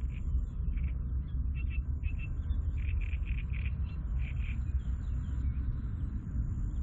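Short bird calls repeated many times, thickest in the middle, over a steady low rumble.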